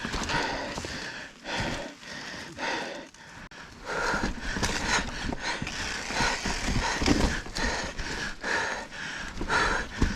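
Mountain biker breathing hard in repeated rhythmic gasps while the bike's tyres and frame clatter and knock over rocks; the knocking becomes denser and more continuous about four seconds in.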